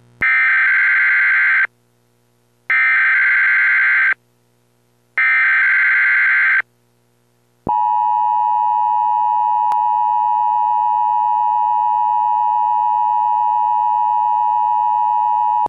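Emergency Alert System broadcast opening: three bursts of the SAME digital data header tones, each about a second and a half long with about a second between them, then the steady two-tone EAS attention signal held for about eight seconds. This sequence announces a severe thunderstorm warning.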